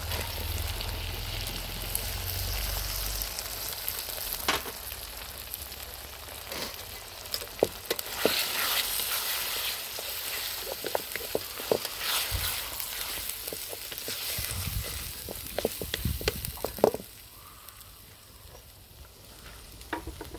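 Onions and freshly added chopped tomatoes sizzling in hot oil in a steel wok. A wooden spatula stirs through them, scraping and knocking against the pan. The sizzle drops sharply about three seconds before the end.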